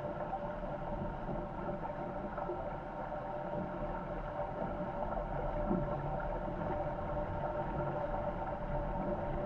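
Corsair F-24 MKII trimaran sailing fast in strong wind: a steady rush of wind and water past the boat, with a low rumble and a steady hum running through it.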